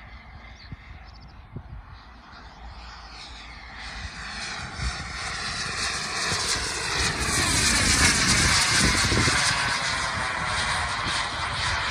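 Jetcentral 90N model turbojet on a Fox 3.5 m glider, its hiss and whine swelling as the model flies past low. It is loudest about eight seconds in and stays loud as it climbs away.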